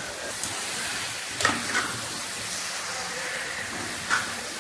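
Chicken and masala sizzling in a steel pan as a metal spoon stirs them, with a few sharp clinks and scrapes of the spoon against the pan, the loudest about a second and a half in.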